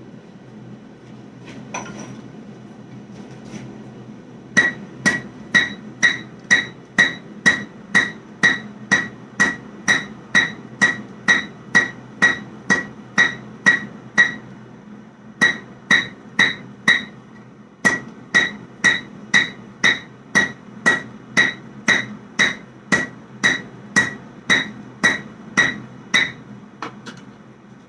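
Hand hammer striking a hot damascus steel bar on the horn of an anvil, about two ringing blows a second, in three runs with short pauses, over a steady low hum. The blows on the round horn draw the bar out long rather than wide.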